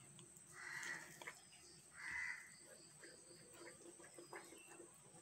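Faint crow cawing, twice, about a second and two seconds in, over soft clicks of a plastic spatula stirring cake batter in a glass bowl.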